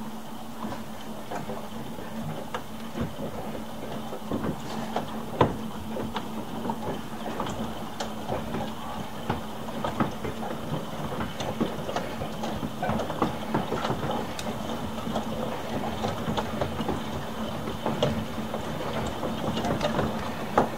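Hailstones as large as 5 cm pelting hard surfaces in a heavy shower: irregular sharp knocks and clicks over a steady hiss of rain, growing denser in the second half. A steady low hum runs underneath.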